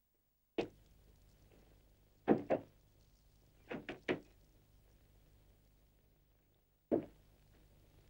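Scattered sharp knocks and thumps: one, then a pair, then three in quick succession, then one more near the end, over the steady low hum and hiss of an old film soundtrack.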